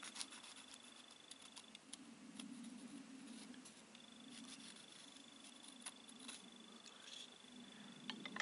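Near silence with faint scattered ticks and light scratches of a pencil marking out a block of wood.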